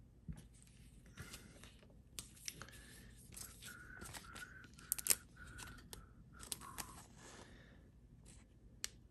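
Faint crinkling and light clicks of a trading card being handled and worked into a soft plastic penny sleeve, with a few brief squeaks in the middle and a sharper click about five seconds in.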